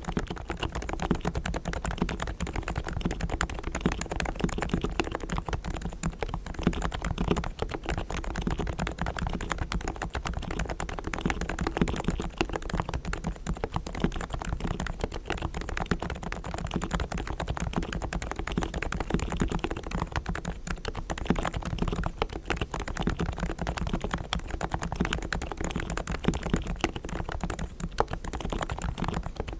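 Steady, fast typing on a Realforce R3 tenkeyless Topre electrostatic capacitive keyboard with 45 g low-noise switches, fully lubricated with Krytox and damped with foam, many keystrokes a second.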